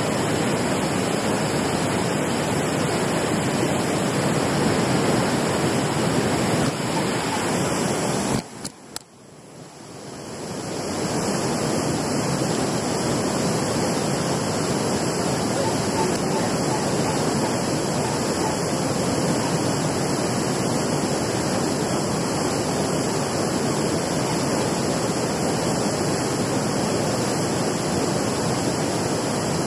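Steady rush of water pouring over a low concrete weir. About eight seconds in it drops out suddenly and fades back in over a couple of seconds.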